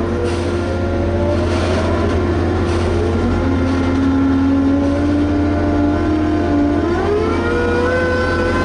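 Liebherr HS 8200 dragline working: a steady low engine drone with a whine that slides slowly in pitch and climbs about seven seconds in as the machine takes load.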